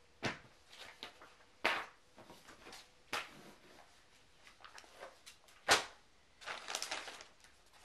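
Plastic parts bag and paper inserts from an RC car box being handled: a handful of short crinkling rustles and light knocks, the loudest about three-quarters of the way through.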